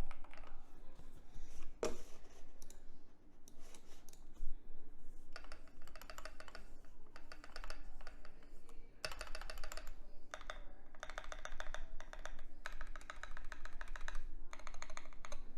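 Typing on a custom Keychron Q2 gasket-mount keyboard with lubed Durock POM linear switches, a steel plate and PBT XDA keycaps: bursts of rapid keystrokes with short pauses, and one louder stroke about two seconds in.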